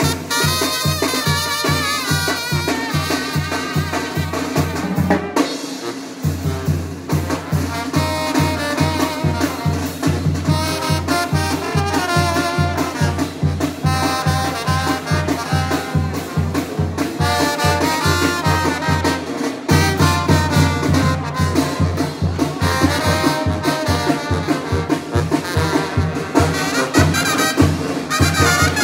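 Tamborazo band playing: brass (trumpets and trombone) carrying the tune over a steady, driving bass-drum beat. The low drum beat drops out for a moment about five seconds in, then comes back.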